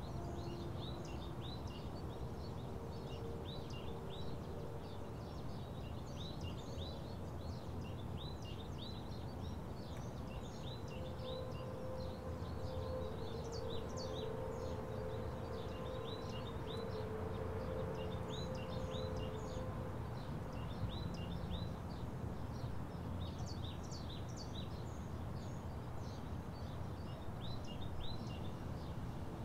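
Outdoor ambience of small birds chirping over and over, short high calls all through, over a steady low background rumble.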